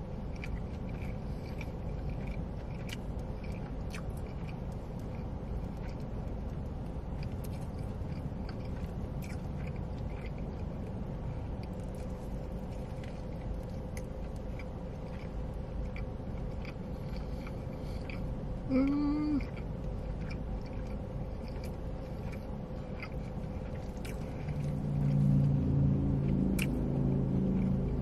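Close-miked chewing of a mouthful of burger, with many small wet mouth clicks. A short hummed "mm" comes about two-thirds through, and a longer low hum of enjoyment near the end.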